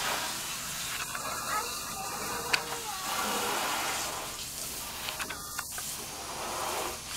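Garden hose running, a steady spray of water, with one sharp click about two and a half seconds in.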